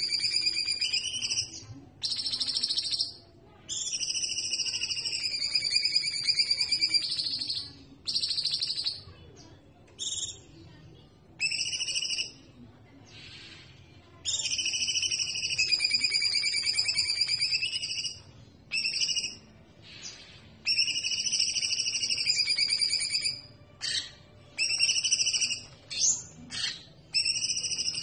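Caged cucak songbirds (cucak jenggot, cucak cungkok and cucak keling) singing: high whistled song phrases, each about one to four seconds long, repeated with short pauses between them.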